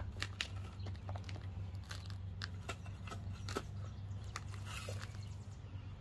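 Shovel cutting into soil and grass sod, with irregular crunching scrapes as the blade goes in.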